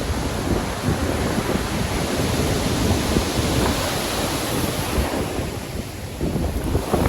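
Stormy sea: heavy waves surging and breaking, with wind, a dense steady rush. It eases briefly about six seconds in, then a fresh wave breaks near the end.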